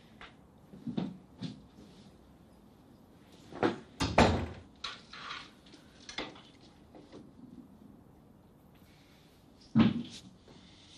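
A few scattered clunks and knocks of things being handled in a room, like a cupboard door being opened and shut, with soft rustling between. The loudest clunks come about four seconds in and again near the end.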